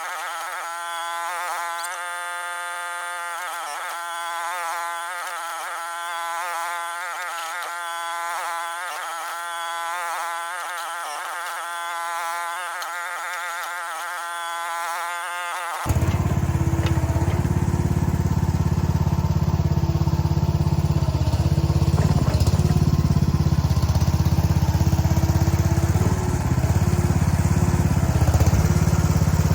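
Mini excavator's small engine working, heard for the first sixteen seconds or so as a high, buzzing whine whose pitch wavers up and down with no low end, like a sped-up recording. It then changes suddenly to the engine's normal, steady low running sound.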